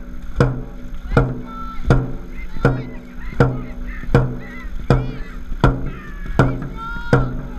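Dragon boat drum beating a steady stroke rhythm, about four beats every three seconds, each beat ringing low. Brief high shouts come between some beats, over the splashing of paddles in the water.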